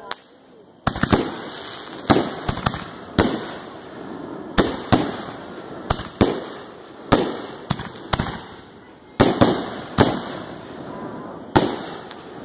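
Aerial fireworks bursting overhead: a sharp bang about once a second, each followed by a short rumble that fades away.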